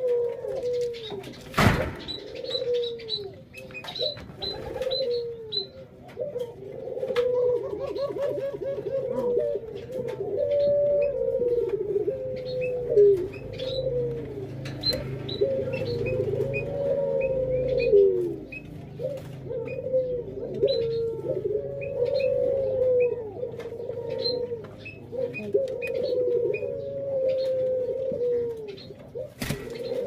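Several ringneck doves cooing over one another, a continuous run of rising-and-falling coos, with faint short high chirps mixed in. One sharp knock comes about two seconds in.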